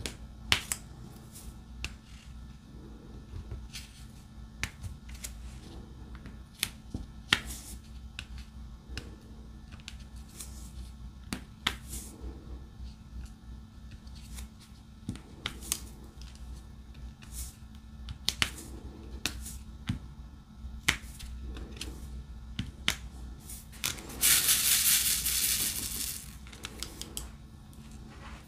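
Irregular sharp clicks and taps of a diamond painting pen or multi-placer picking resin drills from the tray and pressing them onto the adhesive canvas. Near the end comes a hissing, rattling burst about two seconds long.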